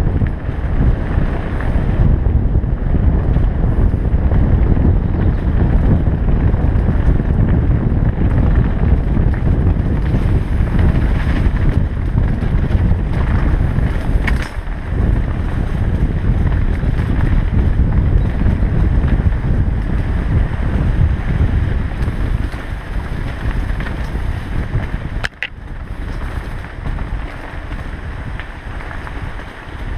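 Heavy wind buffeting on an action camera's microphone over the rumble of a Specialized Enduro mountain bike's tyres rolling fast over gravel and rock. Two brief sharp clicks, about halfway and near the end.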